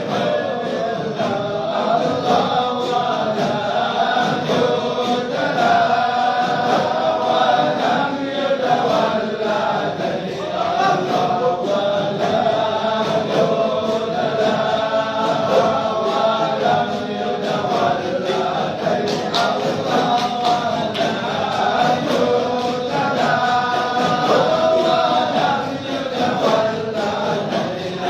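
A group of voices chanting or singing together, without a break.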